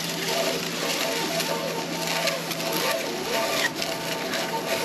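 Magnet-fishing rope being hauled hand over hand up a stone-lined well, with steady scuffing and rubbing of rope and hands, over a steady droning hum.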